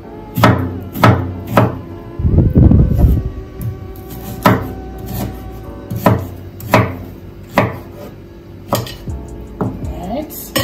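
Chef's knife chopping through raw pumpkin onto a wooden cutting board: a series of sharp, irregularly spaced knocks, with a longer rough stretch about two seconds in.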